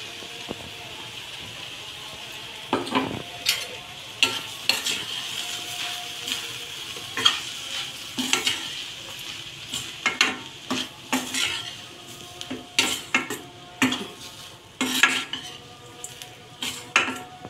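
A metal spatula scraping and clinking against a stainless steel kadai, stirring ground roasted gram and chilli powder into cooked beans over a steady low sizzle. The first few seconds hold only the sizzle before the stirring strokes begin, irregular and a few a second.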